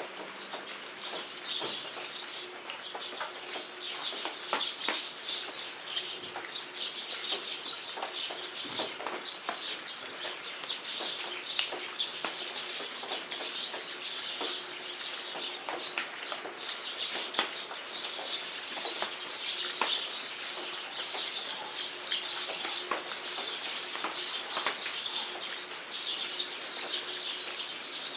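Rain falling, with many small sharp drop ticks, under a dense chorus of birds chirping.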